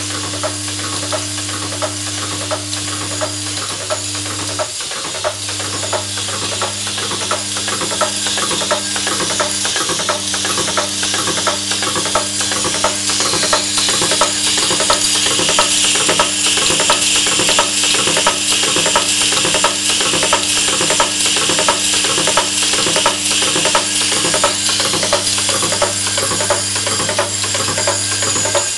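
Vibratory bowl feeder humming steadily while small metal parts rattle along its track, with the fast, regular clatter of a pneumatic assembly machine cycling. The hum drops out briefly about four seconds in, and a hiss of air grows louder from about halfway.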